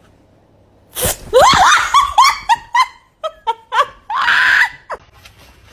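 A person shrieking with laughter: a quick run of loud, falling ha-ha syllables starting about a second in, then a short high scream near the middle.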